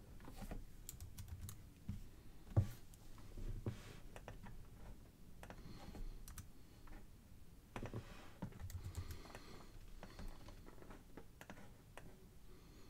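Irregular, quiet clicking and tapping of a computer keyboard and mouse, with one sharper click about two and a half seconds in.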